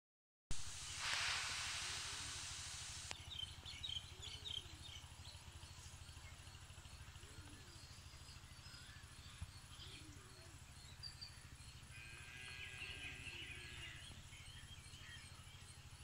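Faint outdoor ambience: small birds chirping now and then, with a longer twittering call about twelve seconds in, over a steady low hum. A burst of hiss fills the first few seconds.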